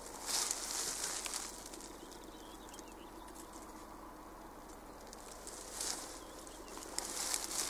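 Open-air countryside ambience: a few short bursts of high rustling hiss over a faint, steady distant hum.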